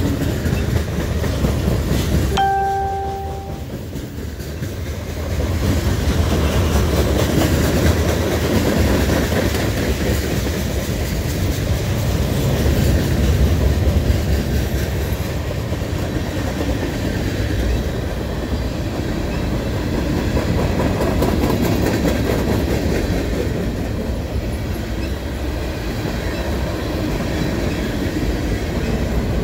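Freight cars of a long mixed freight train rolling past at a grade crossing: a steady rumble of wheels on rail with rhythmic clickety-clack. A short steady tone sounds once about two seconds in.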